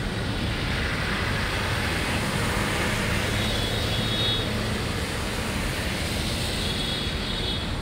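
Car tyres hissing and splashing through standing rainwater on a wet road, over steady traffic noise; the spray swells about a second in, then eases.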